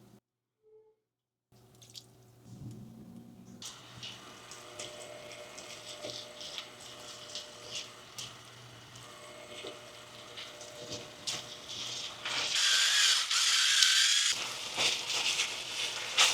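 Water in a kitchen: a steady watery hiss dotted with small clicks and drips, which swells into a louder rush for a couple of seconds near the end. It follows a brief near silence at the start.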